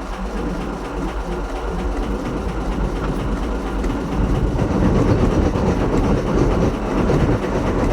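A steady mechanical rumble with a fast rhythmic clatter, like a running engine or vehicle, getting louder about halfway through.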